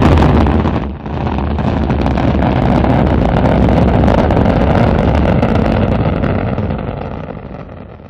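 Rocket engine roar, starting abruptly with a loud burst, dipping briefly about a second in, then a steady deep rumble that fades away near the end.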